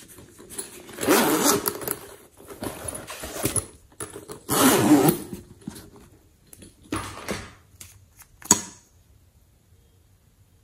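Zipper on a hard-shell pencil case being pulled, two rasping runs about a second in and around four and a half seconds, with small items clattering inside the case. A sharp click near the end.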